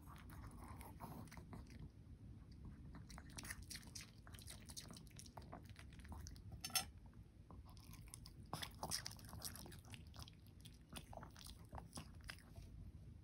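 Pomeranian chewing food it has just taken from chopsticks: a run of small, faint clicks and crunches of its teeth, with one sharper click about seven seconds in.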